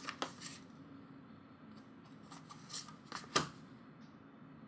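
Small, thick photo cards being handled and laid out: a few soft scattered clicks and rustles, the sharpest about three and a half seconds in.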